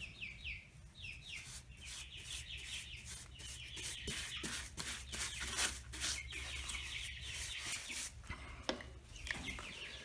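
Paintbrush bristles scrubbing wood sealant onto the end grain of a wooden beehive box: a run of quick, scratchy brush strokes.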